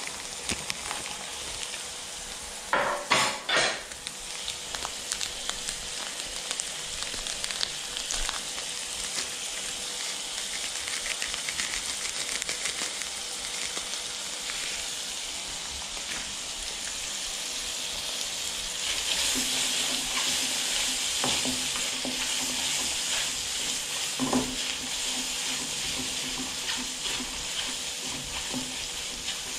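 Food sizzling as it is stir-fried in a wok, with a steady hiss that grows louder about two-thirds of the way through. A few sharp clanks about three seconds in, the loudest sounds, and a couple of lighter knocks later, typical of a spatula striking the wok.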